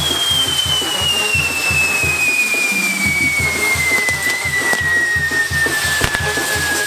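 Castillo firework wheel burning: a whistle firework gives one long whistle that falls steadily in pitch, over a constant hiss, with a steady low drum beat of about four thuds a second underneath.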